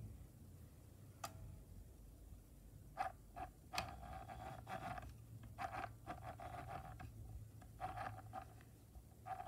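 Sewing machine stitching in short bursts, starting and stopping several times, each run lasting about a second at a steady speed, with a couple of sharp clicks in between.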